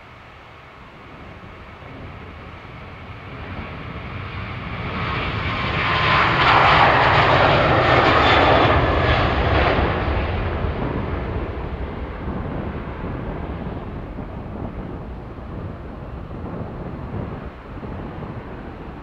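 Ryanair Boeing 737-800's CFM56 jet engines at take-off power during the take-off roll, swelling to their loudest with a rasping edge as the aircraft passes, about six to ten seconds in, then fading as it lifts off and climbs away.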